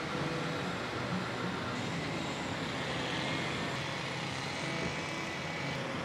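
Steady road traffic noise: vehicle engines and tyres running, with a low hum.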